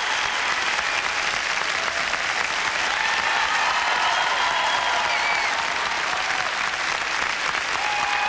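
A large audience applauding steadily, with a few scattered cheers rising over the clapping.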